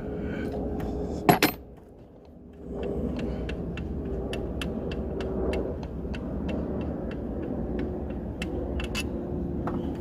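Metal clicks and clinks of a hand wrench working an alternator mounting bolt, with one loud clank about a second in and then a run of sharp clicks a few per second, over a steady low rumble.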